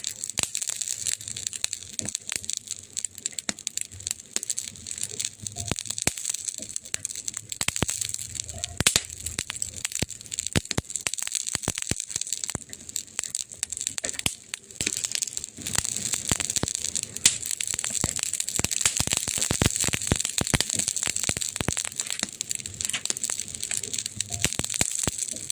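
Wood fire burning and crackling: a steady hiss with dense, irregular pops and snaps.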